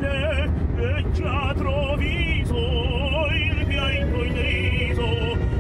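A man singing opera in a high voice, holding notes with a wide vibrato, inside a moving car, with the car's steady road noise underneath.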